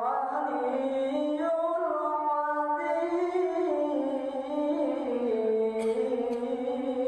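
A man's voice in melodic Quran recitation (tilawah), drawing out a long ornamented phrase with its pitch gliding up and down in held notes. There are two faint clicks near the end.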